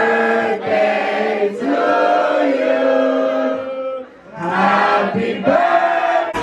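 Voices singing together in long held notes, with no beat behind them; the singing breaks off for a moment about four seconds in, then comes back.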